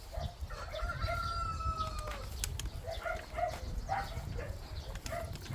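A rooster crowing once, a long call that falls away at the end, followed by several short clucking calls. Wind rumbles low on the microphone underneath.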